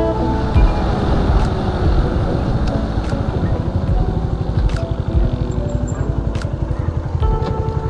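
Motorcycle engine running as the bike rides along, a fast steady pulsing, with wind noise over the handlebar-mounted camera. Background music fades out just after the start and comes back in near the end.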